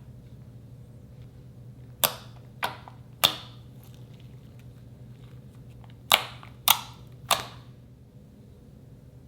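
Six sharp, crisp pops in two sets of three, each set evenly paced about half a second apart, like air pockets popping as slime is pressed and folded.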